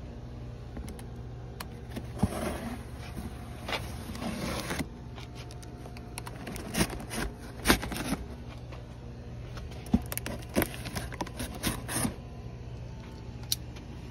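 A cardboard shipping box being opened with a small folding knife: the blade scrapes and slits the packing tape in several bursts of scraping, with sharp clicks and rustles from handling. A steady low hum runs underneath.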